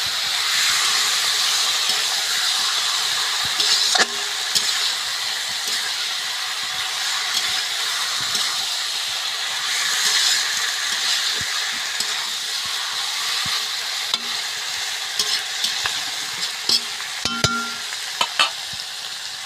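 Marinated duck meat sizzling in hot mustard oil in a wok while a spatula stirs it, the spatula now and then clicking and scraping against the pan. Several clicks come near the end as the sizzle eases slightly.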